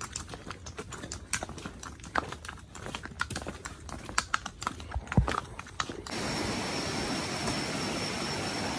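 Horse hooves clip-clopping unevenly on a cobblestone path. About six seconds in this cuts off abruptly to the steady rush of a swollen, muddy river, with a thin steady high tone over it.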